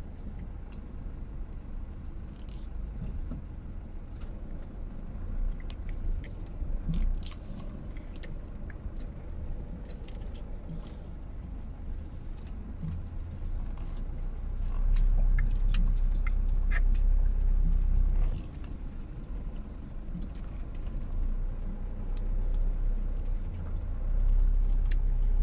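Car cabin noise while driving slowly over a rutted, muddy dirt road: a steady low rumble of engine and tyres, with scattered knocks and rattles as the car rides over the ruts. The rumble grows louder for a few seconds past the middle and again near the end.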